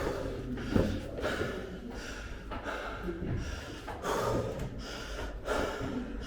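A man panting heavily, a quick run of loud breaths in and out, out of breath from climbing a long flight of tower stairs.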